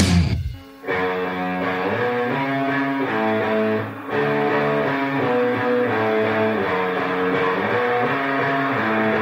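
Music: a loud, heavy rock track cuts off abruptly, and under a second later another song starts with guitar playing a repeating pattern of notes.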